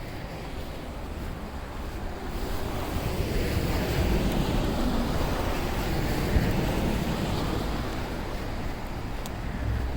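A vehicle passing on a snowy road: a rushing tyre noise swells over a few seconds, peaks in the middle and then fades. Wind rumbles on the microphone throughout.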